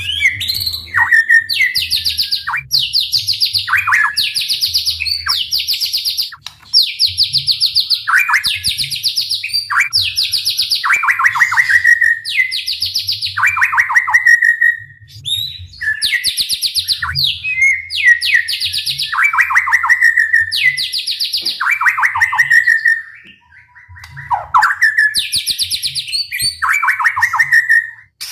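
White-rumped shama (murai batu) singing its loud, fast 'tembakan' song: rapid trilled phrases of about a second each, repeated over and over, with shorter notes sweeping downward between them. The song breaks off briefly twice. This is the rapid-fire song that keepers play to stir other shamas into singing.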